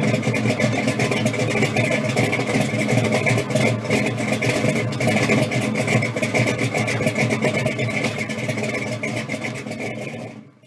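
Supercharged engine of a 1966 Chevrolet Impala pro street car idling steadily, fading out at the end.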